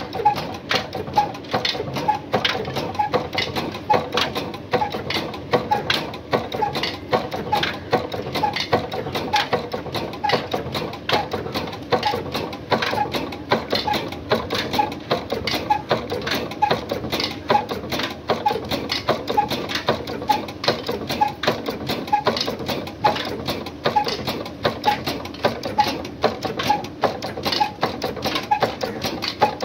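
Old Ruston stationary diesel engine running steadily, an even repeating beat under a dense mechanical clatter.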